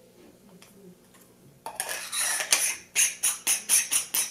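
Threaded battery handle of a camera gimbal being screwed together by hand: a scraping rustle, then rhythmic clicking twists about four a second.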